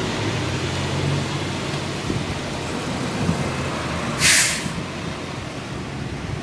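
Fire engine's diesel engine running as the truck drives away, with one short, loud hiss of its air brakes about four seconds in.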